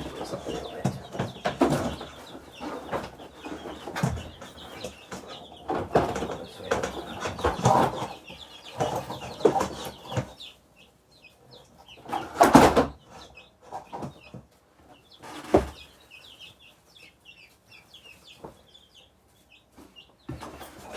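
Baby chicks and ducklings peeping: many short, high chirps throughout. Over them come rustling and clattering of handling in the first half, and a few sharp knocks, the loudest about halfway through.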